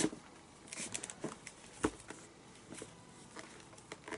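Blue leather glove lace being pulled through the fingertip lace holes of a baseball glove, with the glove being handled: scattered soft rubbing and ticking sounds and a few sharper knocks, the loudest at the start and about two seconds in.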